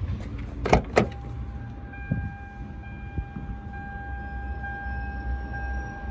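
A 2008 Toyota Mark X's front door is opened, with two sharp clicks about a second in as the handle is pulled and the latch lets go. A steady electronic warning tone then starts and holds: the car's reminder that a door is open with the key left in the ignition.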